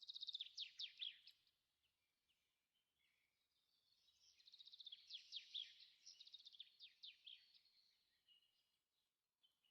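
Songbird singing faintly: quick runs of high, falling chirps, one brief burst at the start and a longer run through the middle.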